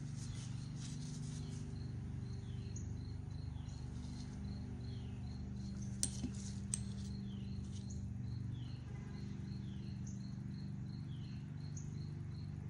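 Faint steady low hum under a high chirping call that repeats over and over, with a few light clicks about halfway through.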